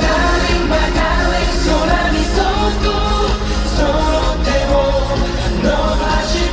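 K-pop song played live through a concert sound system: singing over a full backing track with a heavy, steady bass.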